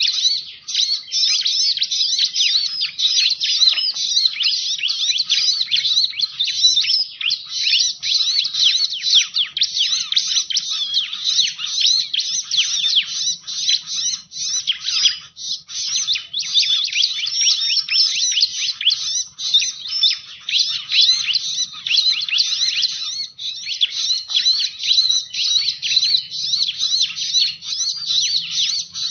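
Bar-winged prinia (ciblek) calling in a rapid, almost unbroken stream of high chirps and trills. It is a recorded lure call of the kind played to draw in this species.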